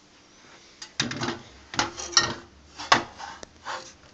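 Hard parts being handled on a workbench as a spare projection-TV CRT tube is picked up and compared: a run of knocks, clacks and scrapes starting about a second in, the loudest knock near the three-second mark.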